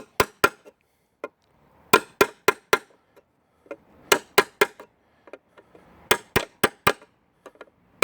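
Hammer blows driving a toothed timber connector's points down into wood until it sits tight, in quick groups of three or four strikes about every two seconds.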